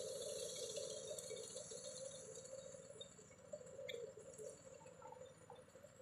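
Walk-behind wheat reaper running in standing wheat, a faint mechanical clatter of its engine and cutter that fades steadily as the machine moves away.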